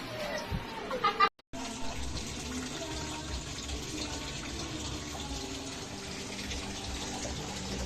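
Water running steadily into a washing machine, filling through its water inlet valve. It starts after a short voice and a sudden break about a second in.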